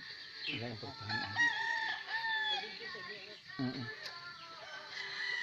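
Gamecock crowing once: a long crow starting about a second in, lasting about a second and a half and dropping in pitch at the end.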